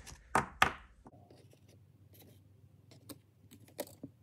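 Plastic handling clicks and scrapes as a sleeved trading card is worked into a rigid plastic toploader: two sharp clicks about half a second in, then faint scattered ticks.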